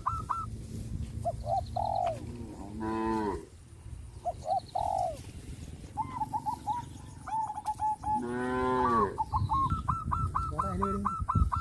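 Cows mooing: two long, low moos, one about three seconds in and another about eight seconds in. Between them, birds call in quick, repeated chirps.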